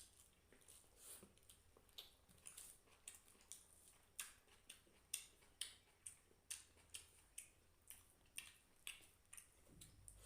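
Faint, close-up chewing: soft wet mouth clicks and smacks, about two a second.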